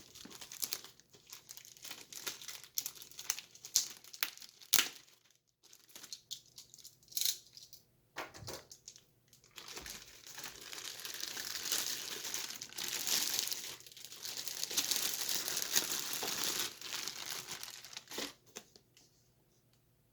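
Packaging being unwrapped by hand, crinkling and tearing. There are sharp crackles and rustles at first, then a continuous rustle from about halfway through that stops shortly before the end.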